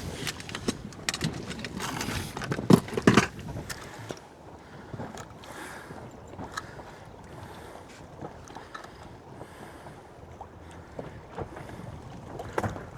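Water lapping against the hull of a small anchored fishing boat, with wind on the microphone. Several sharp knocks in the first few seconds, the loudest about three seconds in, then a quieter, steady wash with scattered small ticks.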